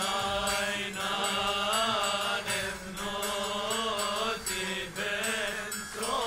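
A voice chanting a slow, winding melody over a steady held low drone note, pausing briefly for breath every second or so.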